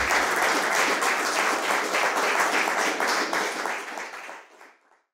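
Audience applauding with many hands clapping densely, fading out over the last second.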